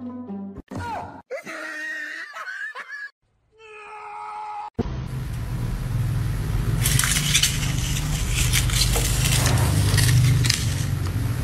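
Music and gliding pitched sounds for the first few seconds. Then, about five seconds in, the plastic caster wheels of a small plant caddy start rumbling and clattering across a tile floor as it is pushed along, getting louder toward the end.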